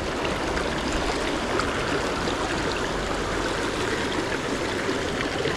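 Small rocky creek flowing over stones: a steady rush of running water.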